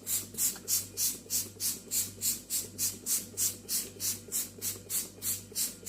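Rhythmic back-and-forth scrubbing of a stovetop being cleaned with spray cleaner: an even run of swishing strokes, about three or four a second.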